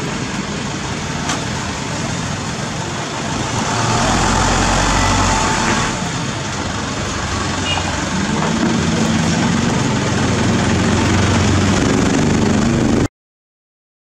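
Diesel engines of a Cat 320D excavator and an Isuzu dump truck running. The engine noise swells for a couple of seconds about four seconds in, a steady engine drone sets in from about eight seconds, and the sound cuts off abruptly near the end.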